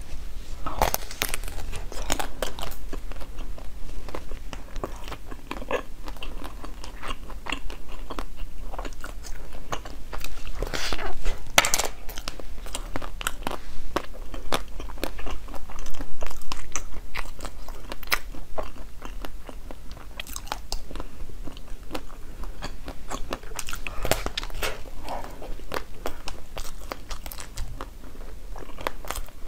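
Close-miked biting and chewing of a large green-crusted pastry with a soft purple-and-white filling: a continuous run of crisp crunchy clicks and crackles.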